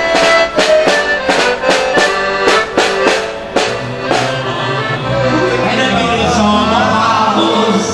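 Piano accordion playing a lively Hungarian mulatós wedding tune, with a snare drum beating a steady time. About halfway through, the drum strokes stop and the accordion carries on alone with a smoother, wavering melody.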